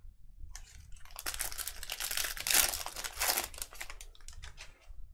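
Crinkling and tearing of a trading-card pack's wrapper as it is torn open and handled, a dense crackle that starts about a second in, peaks midway and dies away before the end.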